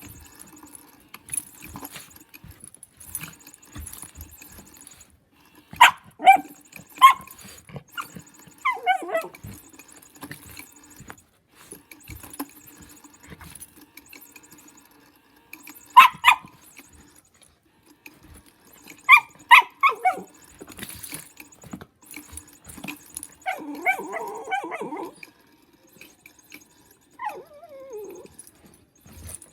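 Miniature schnauzer puppy barking in short, sharp yips, with whines that fall in pitch, in five or so bouts separated by quieter stretches, while it plays with a moving toy.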